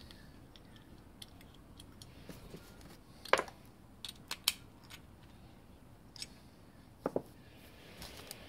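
Scattered light clicks and taps of small metal carburettor parts being handled and set down on a workbench, the sharpest a little over three seconds in.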